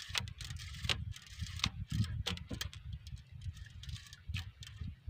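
Irregular small clicks and taps from nylon fishing line being pulled off and handled on a coil, over a steady low rumble.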